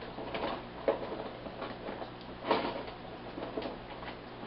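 Someone rummaging through a storage drawer: irregular knocks and clatter of items being shifted, the loudest knock about two and a half seconds in, over a steady low hum.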